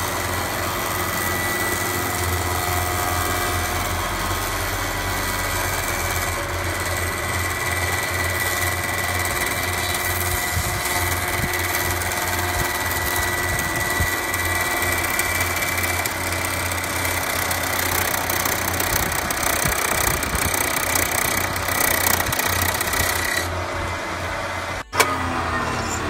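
Electric-motor-driven 20-inch spiral cutterhead planing a slab: a steady, loud machining noise with a high whine over a low hum. Near the end the cutting noise drops away and a single sharp click follows.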